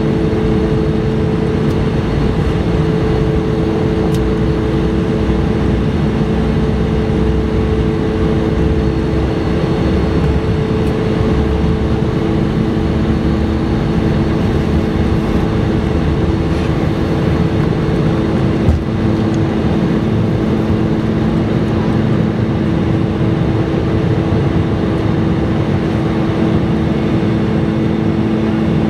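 Inside the cabin, an Embraer 175's GE CF34-8E turbofan engines run at takeoff thrust through the takeoff roll and lift-off: a steady loud rush with a low rumble and several steady droning tones. A single thump comes about two-thirds of the way through.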